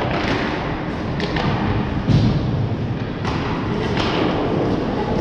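Ice hockey rink sounds: short sharp scrapes of skates on the ice about once a second over a steady hall noise, and a heavy thump about two seconds in.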